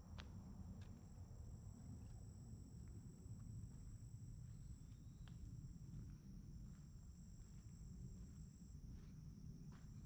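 Faint insect chorus, a steady high buzz, over a low rumble, with a few scattered light clicks.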